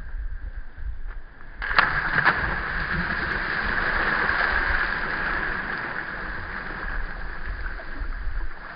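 A splash as bodies hit the water about two seconds in, then steady splashing and churning of shallow water close to the microphone. Before the splash there is only a low rumble.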